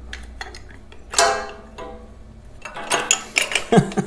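Light metal clicks and one ringing twang from the wire bail and glass sediment bowl of a tractor's diesel water trap being worked into place by hand, then a quick run of clinks near the end.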